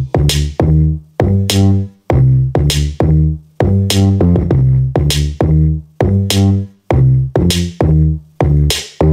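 Electronic music with a drum-machine beat and deep bass notes, about two hits a second, each dying away into a short gap, played at full volume on an Edifier D12 Bluetooth bookshelf speaker.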